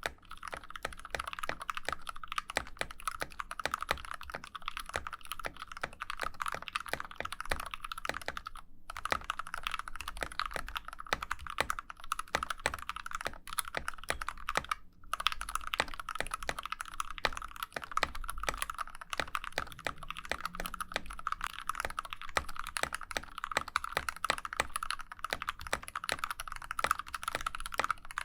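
Fast continuous typing on a custom 60% mechanical keyboard (GK64X board in an aluminum case with a brass plate, lubed Gateron KS3 black and milky yellow switches, PBT keycaps): a dense run of keystroke clacks. The typing pauses briefly about nine seconds in and again at about fifteen seconds.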